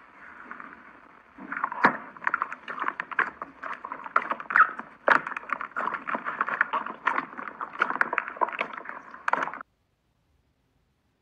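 Slime being pressed and kneaded by hand: a dense run of wet squelching clicks and pops that cuts off suddenly about a second and a half before the end.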